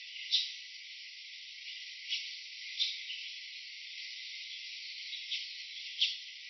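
Insects chirping: a steady high hiss with short sharp chirps at uneven intervals, about one a second.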